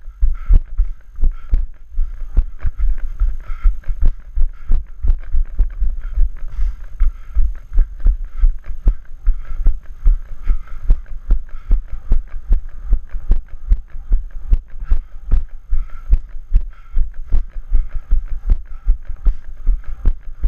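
A trail runner's footfalls at a steady pace: heavy low thuds about three a second, on a rocky path and wooden boardwalk.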